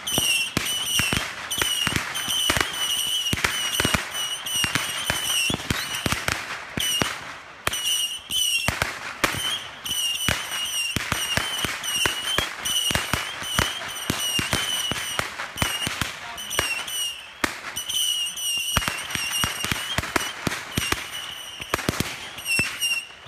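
Hand-held fireworks going off in rapid succession: a dense run of sharp pops and bangs, with a high, wavering whistle that keeps breaking off and starting again.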